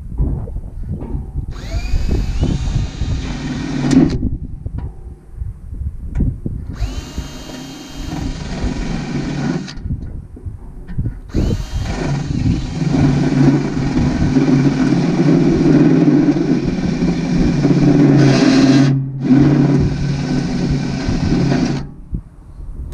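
Electric drill boring into metal at a centre-punched mark, run in three bursts that each start with a rising whine. The last and longest burst lasts about ten seconds, with short knocks in the pauses between bursts. The punch mark keeps the bit from wandering, so the hole gets started.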